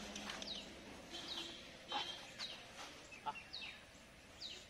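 A bird repeating a short, high chirp that falls in pitch, about once a second, with a few faint scuffs and clicks between the calls.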